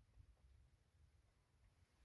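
Near silence: faint low background rumble.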